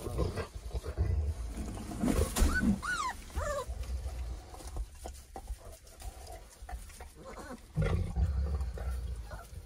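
Great Pyrenees mother dog growling low over her food, guarding it from her puppies, in two stretches near the start and near the end. A few short high whimpers from the three-week-old puppies come about two to three seconds in.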